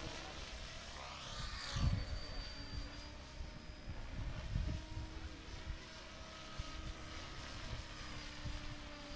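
Radio-controlled helicopter flying aerobatics, its motor and rotor giving a steady whine. As it flips, the blades are driven from positive to negative pitch.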